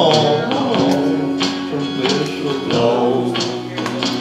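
Country song with a man singing over guitar and a steady beat of about two strokes a second, a held note between the sung lines.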